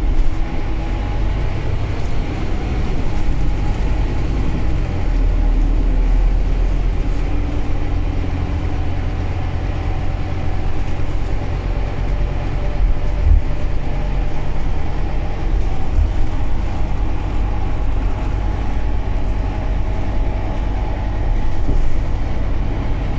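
City bus under way, heard on board: engine running with a steady low drone over road noise.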